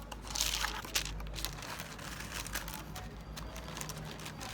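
Packaging crinkling and rustling with small clicks, loudest in the first second or so, then lighter handling over a faint steady hum.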